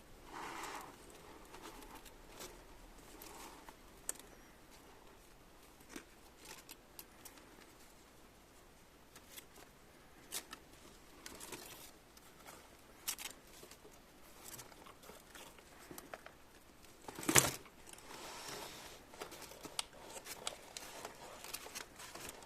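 Faint handling noises: scattered light clicks, taps and rustling, with one sharper, louder knock about two-thirds of the way through.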